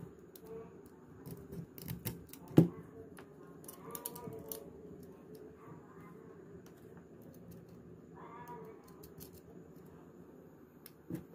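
Small electronics being handled: light clicks and taps of a circuit board and plastic module being fitted together, with one sharp knock about two and a half seconds in and another near the end.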